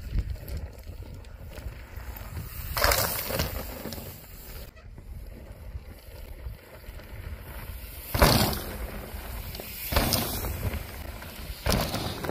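Mountain bike riding down a dirt trail: a steady low rumble of tyres and wind on the camera microphone, with several louder sudden rushes of noise, about three, eight, ten and twelve seconds in.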